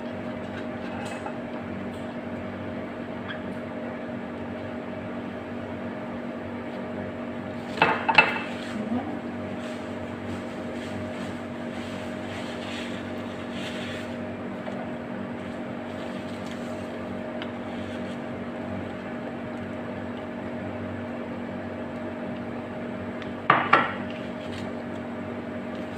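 A steady background hum, broken twice by brief sharp clattering, about eight seconds in and again near the end, as food, wrappers and boxes are handled at the table.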